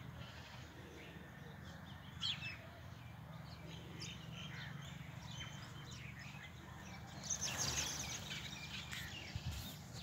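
A flock of sparrows chirping: scattered short, high chirps, thickening into a dense burst of chirping a little after seven seconds in, over a faint low hum.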